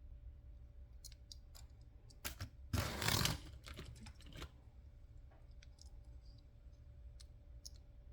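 Light clicks and taps of toy cars being handled, with a brief louder clatter about three seconds in.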